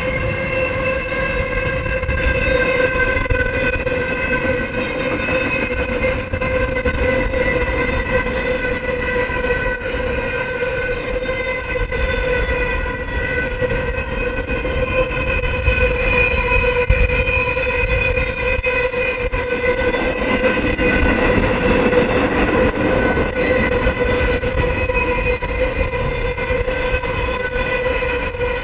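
Double-stack intermodal freight cars and trailer flatcars rolling past, a steady rumble of wheels on rail that swells about two-thirds of the way through. A continuous high whine holds at one pitch over the rumble the whole time.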